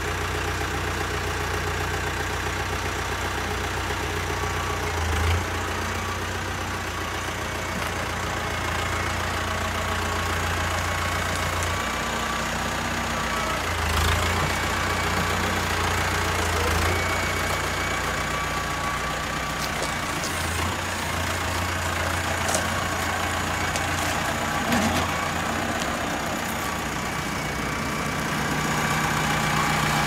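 Diesel engine of a red front-loader farm tractor running at idle, a steady low drone that swells and eases a little as the tractor moves off, with a few light knocks.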